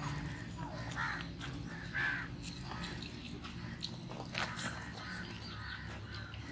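Crows cawing several times in short calls over a steady low background hum.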